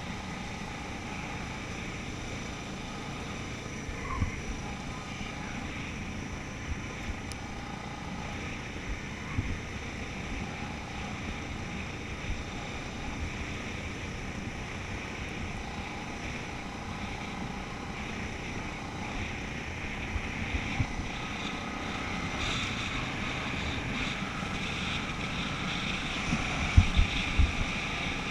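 ATV engine running at a steady road speed on a gravel road, with tyre and gravel noise. There are scattered knocks from bumps, and it grows a little louder over the last several seconds, with the strongest knocks near the end.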